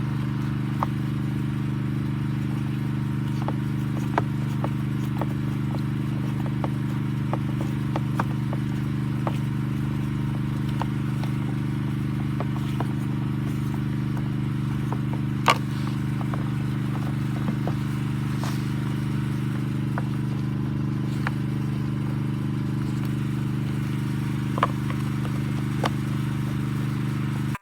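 Suzuki Address V50 moped engine idling steadily, with scattered light clicks and ticks over it.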